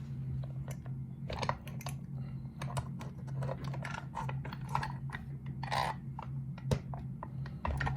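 Irregular small clicks and light rattles of a just-opened challenge lock and its picking tools being handled, over a steady low hum.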